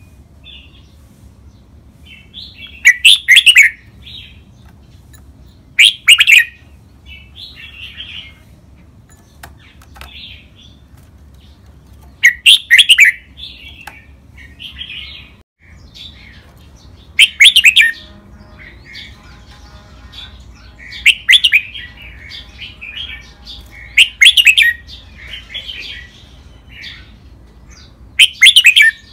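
Red-whiskered bulbul singing: short, loud song phrases every three to five seconds, with softer chirps between them.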